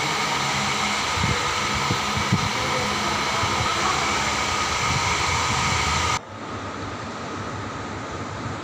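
Steady indoor ambience with a whirring hum, and a few soft footstep knocks on the stone stairs. About six seconds in it cuts abruptly to a quieter, duller hiss.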